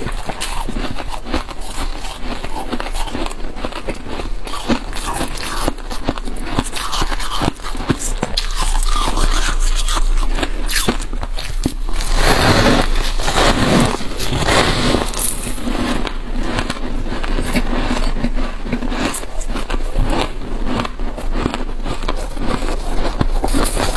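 Freezer frost being scraped and bitten: dense crunching and crackling, with a louder stretch of crunching about halfway through.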